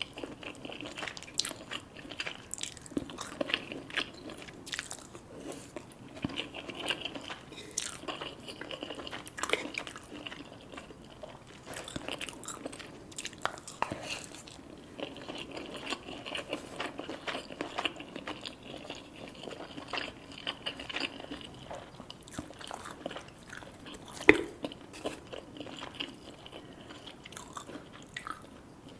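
Close-miked biting and chewing of crunchy food: irregular crisp crunches with one sharp, loud crunch about 24 seconds in.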